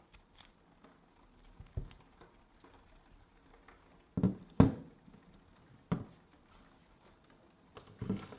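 Small engine parts and tools handled on a work surface during hand assembly: scattered light clicks and knocks, with a cluster of sharper knocks about four seconds in and another near the end.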